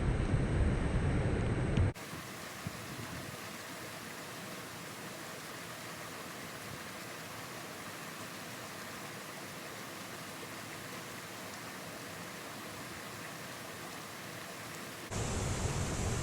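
Waterfall water rushing as a steady, even hiss. A louder, deeper rumble fills the first two seconds, cuts off suddenly, and comes back just as suddenly near the end.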